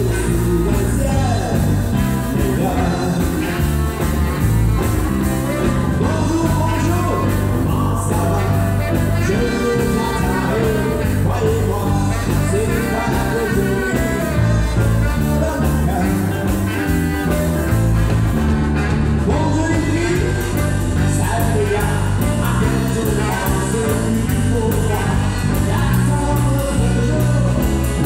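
Live band playing through a PA: a male vocalist singing over electric guitar and drums at a steady beat.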